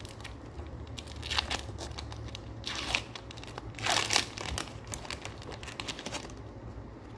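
A Pokémon booster pack's foil wrapper crinkling and tearing open in a few short bursts, the loudest about four seconds in, followed by lighter rustling.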